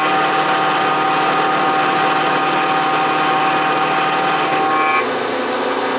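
A 60-degree dovetail cutter on a Bridgeport milling machine cutting aluminum: a steady cutting noise with a high whine, which drops out briefly about five seconds in.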